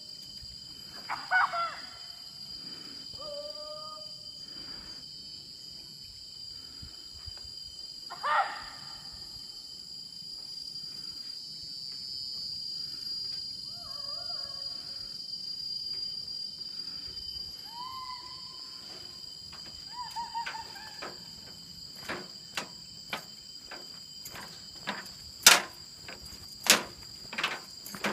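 Forest insects droning, a steady high-pitched whine throughout, with a few short whistled calls, the loudest a falling one about eight seconds in. In the last few seconds, footsteps knock sharply on the metal mesh deck of a suspension walkway.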